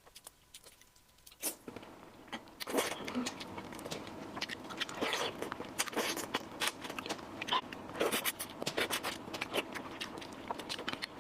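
Close-miked eating sounds: chewing with many short smacking clicks, sparse at first and busier from about a second and a half in.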